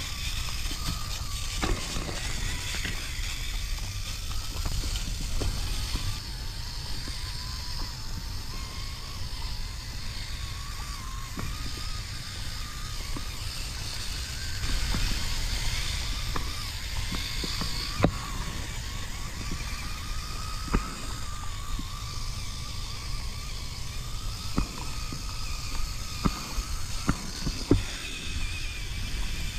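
Electric drivetrain of an Axial Capra RC rock crawler whining as it crawls, the whine wavering up and down in pitch with the throttle. Low rumble runs underneath, with scattered sharp clicks and knocks, the loudest about eighteen seconds in.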